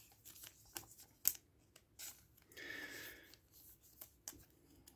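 Faint rustles and clicks of a chrome trading card being handled in the fingers, with a sharper click just over a second in and a short scraping rub a little before the middle.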